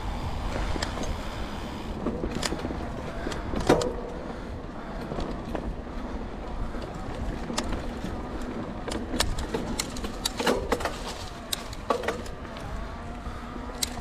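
Mountain bike riding over a rough dirt trail: steady tyre and rolling noise with irregular clicks and clatters from the chain and frame over bumps, the sharpest knock about four seconds in.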